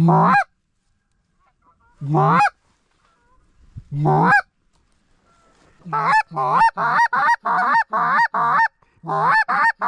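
A hand-blown goose call imitating Canada goose honks to draw in a passing flock. There are three single honks about two seconds apart, then a fast run of honks and clucks, about three a second, each one breaking upward in pitch.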